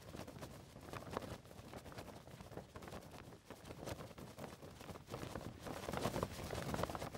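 Faint outdoor field ambience: low wind noise with scattered, irregular small ticks and crunches.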